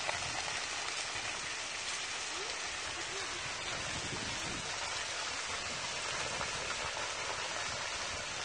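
Steady crackling of dry grass and reeds burning in a bush fire.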